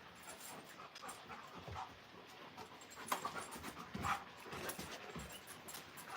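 Alaskan Malamute panting faintly, with a few short, slightly louder breaths or snuffles about three and four seconds in.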